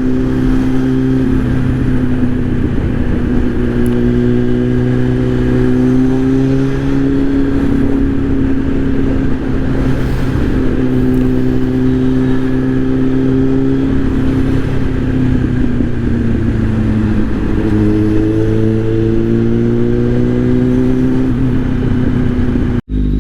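Kawasaki inline-four motorcycle engine running on the move, its exhaust fitted with a de-cat pipe; the note holds steady, easing up and down slowly in speed. Wind rushes over the microphone, and the sound drops out for an instant near the end.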